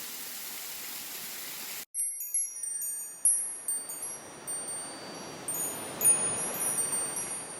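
A steady hiss cuts off abruptly about two seconds in, and wind chimes begin ringing, their high, clear notes struck again and again at uneven intervals over a soft rushing noise.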